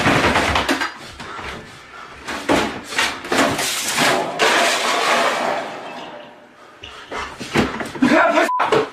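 Loud scramble with bangs as a tall window is flung open and a man clambers out through it. A short beep comes near the end.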